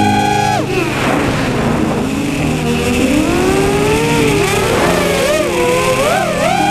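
Electronic soundtrack music: held chords under a lead synth line that glides down and back up in pitch, so it sounds a little like a revving engine.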